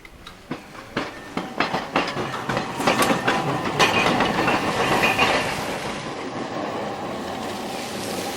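Hakodate city tram (streetcar) passing, its wheels clacking over rail joints. The clacks come faster and louder over the first few seconds, then give way to a steady rumble that slowly fades.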